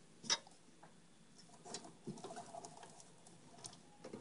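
Light clicks and scratchy rustling of computer cables and plastic connectors being handled and pushed into place: a sharp click shortly after the start, then a few softer clicks and rustles.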